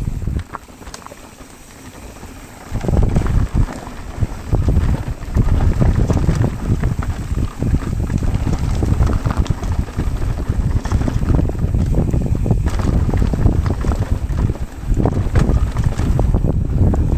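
Wind buffeting a riding camera's microphone, mixed with the mountain bike's tyres and frame rattling over a dirt downhill trail in many small knocks. It is quieter at first and grows much louder about three seconds in.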